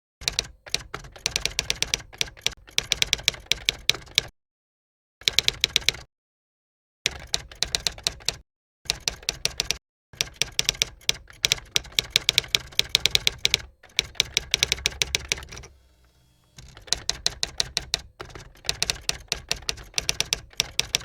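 Typewriter keys clacking in quick runs of strokes, broken by several short stretches of silence.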